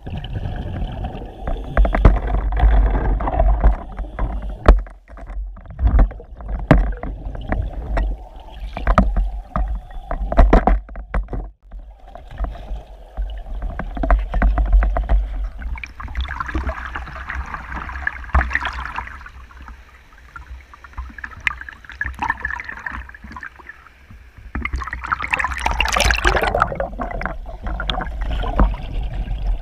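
Underwater camera-housing audio while drifting in a river current: a constant low rumble of moving water with frequent knocks and clicks against the housing, and two longer stretches of hissing, bubbling noise, one midway and one near the end.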